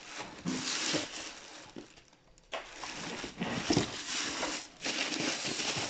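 Plastic wrapping crinkling and rustling as hands shift a boxed appliance inside it, in several bursts with a brief pause about two seconds in.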